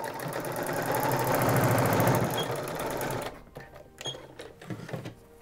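Domestic electric sewing machine running fast, stitching through an elastic waistband casing, stopping about three seconds in. A few light clicks and knocks follow as the machine and fabric are handled.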